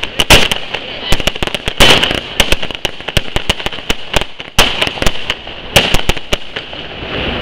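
Consumer firework batteries (cakes) firing: a dense, irregular string of sharp bangs and pops, with several louder bangs standing out.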